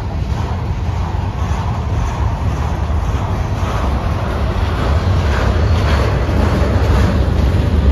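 Freight cars of a passing freight train rolling by at close range: a steady rumble of steel wheels on the rails, growing a little louder toward the end.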